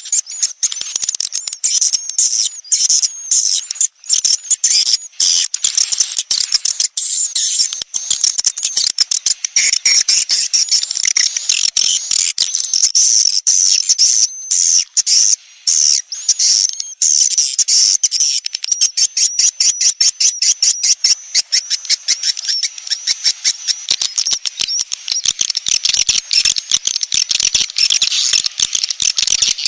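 Swiftlet lure-call recording of the kind played in swiftlet houses to draw in young birds: dense, continuous high-pitched twittering and chirping of many edible-nest swiftlets, packed with rapid clicks.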